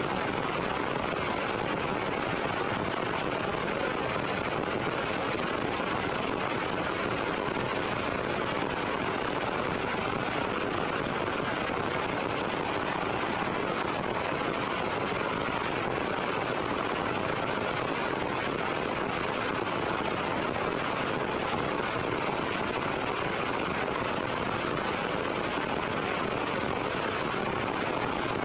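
Heavy rain falling steadily on forest foliage and branches: an even, unbroken hiss.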